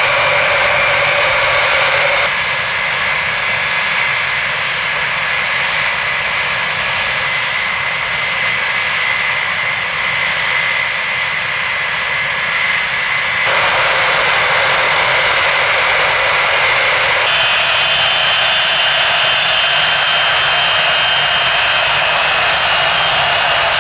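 Large aircraft engines running, a steady loud rush with a high whine. The sound changes abruptly three times, about two, thirteen and seventeen seconds in.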